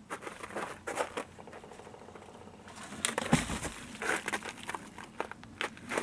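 Dry dead branches and sticks cracking and clattering as they are handled and shifted against a leaning log, with footsteps through brittle brush. A heavier thump comes about three seconds in.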